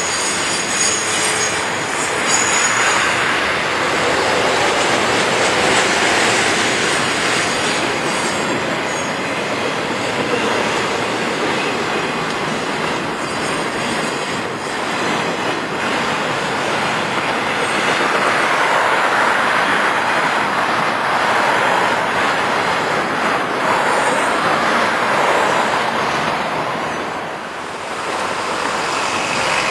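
Florida East Coast Railway double-stack container freight train rolling past at a grade crossing: a loud, continuous rumble and rattle of steel wheels on rail that swells and eases as the cars go by, dipping briefly near the end.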